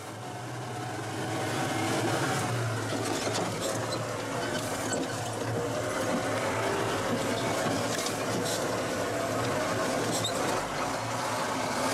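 Heavily loaded truck's engine running steadily as it drives along a rough dirt road, heard from inside the cab.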